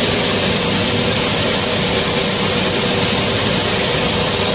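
High-speed hands-in blade hand dryer running, a loud steady rush of air with hands held in it and a faint steady hum underneath.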